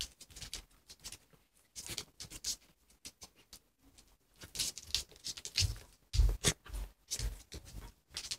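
A small dachshund and a cat play-fighting on a hard wooden floor: irregular scuffling as paws and claws scrabble and pat on the boards, with a few heavier thumps of bodies hitting the floor in the second half, the loudest about six seconds in.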